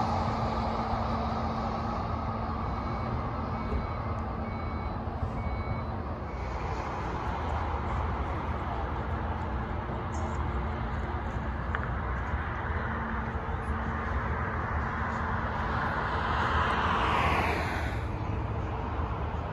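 Steady rumble of highway traffic passing below. A few seconds in comes a run of short electronic beeps like a reversing alarm, and near the end one vehicle passes close with a rising, then falling whoosh.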